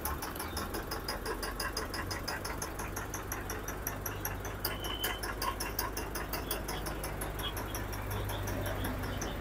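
Engine of a mobile crane running steadily, a low hum, with a fast, even ticking of about five a second over it.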